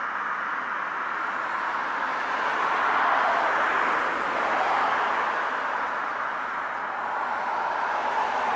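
Steady hiss of road traffic, swelling a little about three seconds in as a vehicle passes.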